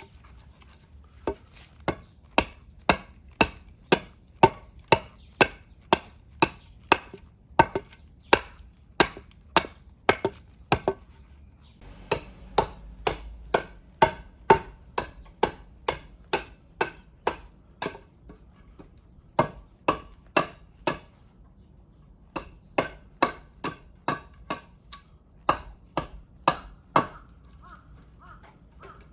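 A hand axe chopping into scrap wood: a steady run of sharp, knocking strikes, about one and a half a second, broken by a few short pauses.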